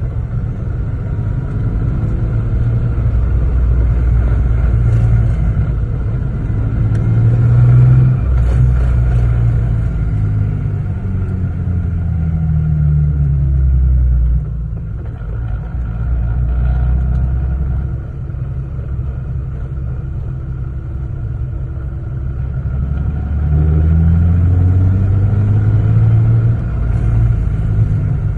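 Lexus GS 300 engine pulling through the gears with the ZF manual gearbox: the engine note climbs as it accelerates, drops off suddenly about halfway through, then climbs again near the end.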